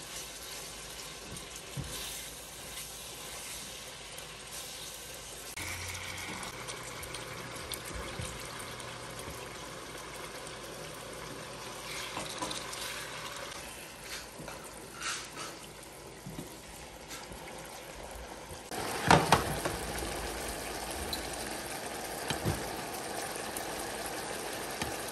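Chicken strips simmering in their own juices in a frying pan, a steady bubbling hiss, with occasional small clicks of metal tongs against the pan. A louder burst of noise comes about 19 seconds in.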